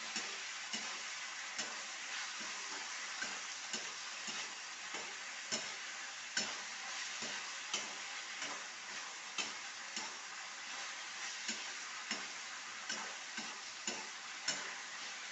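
Vegetables sizzling as they fry in a pan, with a steady hiss, while a spoon stirs them and clicks against the pan a little more than once a second.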